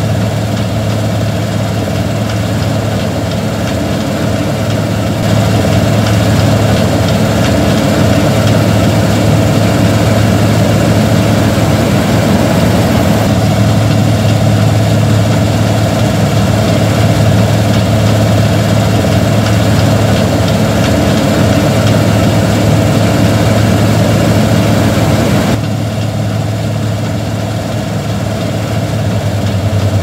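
Claas Lexion 450 combine harvester running steadily while harvesting wheat: a deep, continuous engine drone with a steady low hum. It gets louder about five seconds in and drops back a few seconds before the end.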